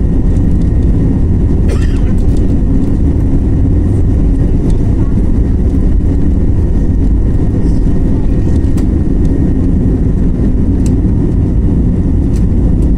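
Jet airliner's engines at takeoff thrust, heard from inside the cabin during the takeoff roll: a loud, steady rumble with faint steady whining tones above it. A few brief light clicks come through the roar.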